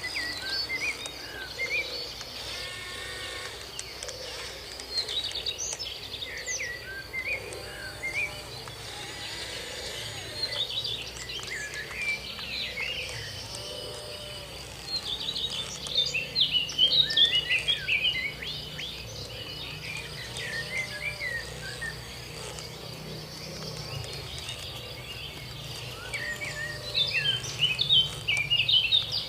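Birds chirping over a steady high-pitched insect drone, the chirping busiest about halfway through and again near the end.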